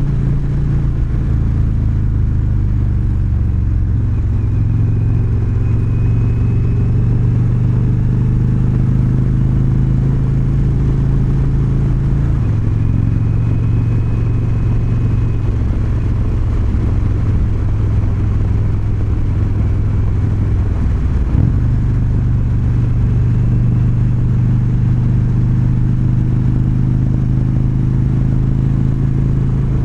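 Indian Chieftain Dark Horse's Thunder Stroke 116 air-cooled V-twin running steadily on the move. The engine note drops about twelve seconds in and changes again with a short knock a little past twenty-one seconds.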